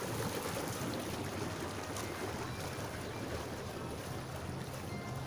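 Steady rush of water bubbling from a hot tub's jets, with a low steady hum underneath.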